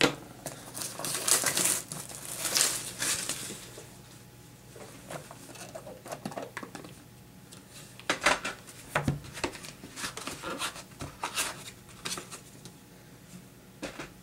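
Plastic wrap crinkling as a trading-card hobby box is unwrapped, through the first few seconds, then scattered taps, scrapes and rustles as the cardboard box and its sleeve are handled and the lid is lifted off.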